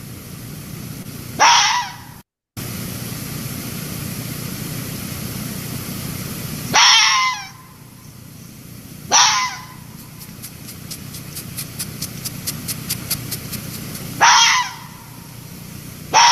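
Red fox calling: five loud, harsh, barking calls spaced several seconds apart, each dropping steeply in pitch.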